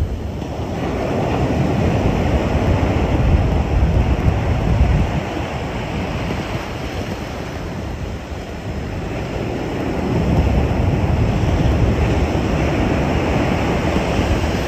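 Ocean surf breaking and washing over the sand in the shallows, with wind rumbling on the microphone. The wash swells twice, once in the first few seconds and again about two-thirds of the way through.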